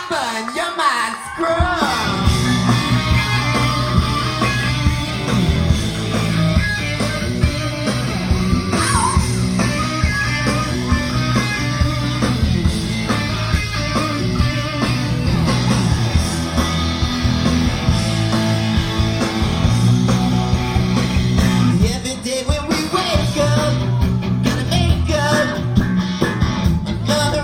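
Live rock band playing an uptempo song, with singing over it at times and a brief drop in level about three-quarters of the way through.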